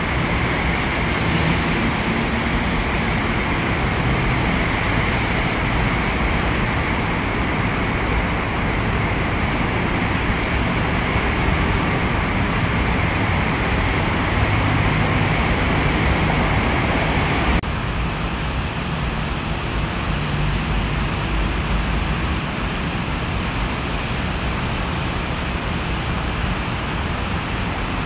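Steady road traffic noise from an elevated expressway. About two-thirds of the way through the hiss suddenly becomes duller, and the steady rush goes on.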